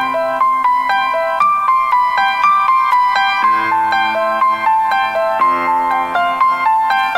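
Piano playing a flowing melody, a few notes a second.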